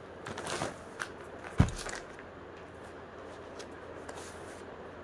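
Clear plastic packaging bag crinkling as a folded suit is pulled out of it, then a single dull thump about a second and a half in, followed by quiet, faint handling of the fabric.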